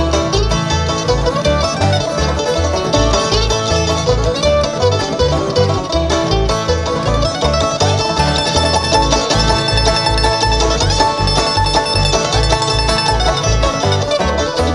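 Acoustic bluegrass band playing an up-tempo instrumental live. The banjo is to the fore over guitar strumming and a steady, evenly pulsing bass line.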